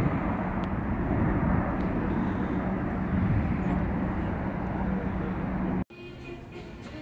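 Airbus A350's twin Rolls-Royce Trent XWB turbofans at climb power as the airliner departs: a steady rumbling jet noise with a low hum. It cuts off abruptly near the end.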